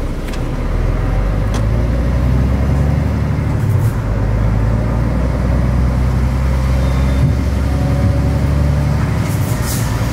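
Diesel truck engine running under light load as the truck rolls slowly forward, a steady low engine note with a short break about four seconds in.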